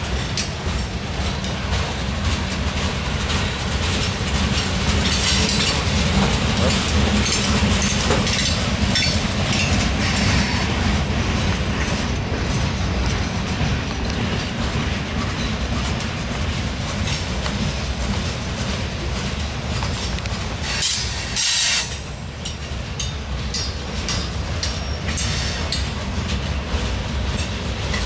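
Boxcars of a long mixed freight train rolling past close by: a steady low rumble with the wheels clicking over the rail joints. A brief burst of hiss comes about three-quarters of the way through.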